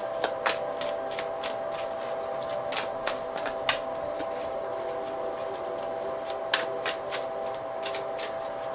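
Tarot cards being handled and shuffled: irregular sharp clicks and snaps, several close together at first, then sparser, over a steady hum.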